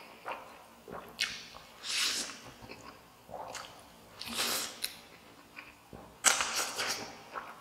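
A person slurping spicy instant noodles off chopsticks, several airy sucking slurps a second or so apart with chewing in between; the loudest slurp comes about six seconds in.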